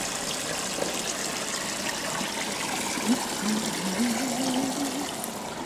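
Water pouring from a wide hose into a filling flood-test tank, churning and splashing steadily against a flood barrier panel.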